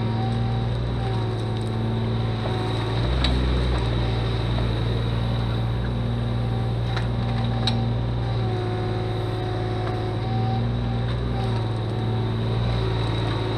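Kubota mini excavator's diesel engine running steadily while the bucket digs, its note rising and falling as the hydraulics take load. There are a few short, sharp knocks.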